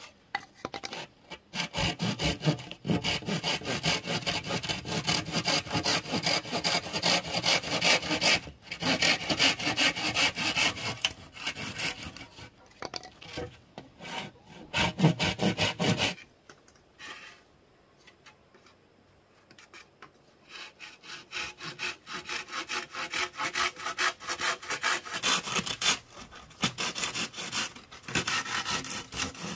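Rapid, rhythmic rasping strokes, a tool or hard material rubbing back and forth, in two long runs with a pause of a few seconds between them.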